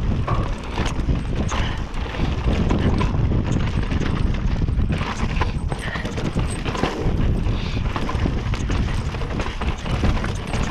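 Mountain bike descending a dirt trail at speed: tyres rolling over packed dirt and rocks, with the chain, frame and suspension rattling and clacking over every bump. A steady low rumble of wind buffets the microphone underneath.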